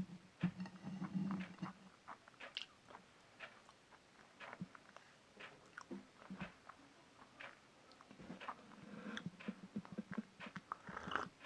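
A person biting and chewing dry chalk close to the microphone: scattered, irregular crisp crunches and mouth clicks.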